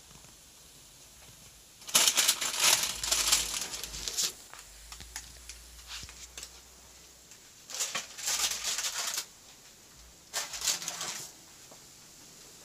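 Parchment paper rustling and crinkling as a sheet of freshly baked sopes is pulled off the oven rack, in three bursts: a long one about two seconds in, then two shorter ones near the end.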